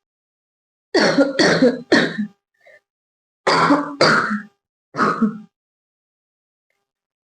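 A girl coughing deliberately in two runs of about three coughs each, the first run about a second in and the second around the middle, with a short pause between them.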